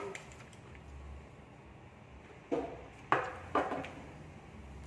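Paper and plastic food wrapping being handled: a few short crinkles, three of them close together past the middle, over a faint steady room hum.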